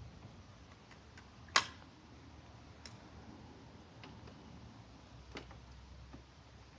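A few isolated sharp clicks from hand work on the dirt bike just after the spark plug is refitted. The loudest comes about a second and a half in, with fainter ones spread through the rest.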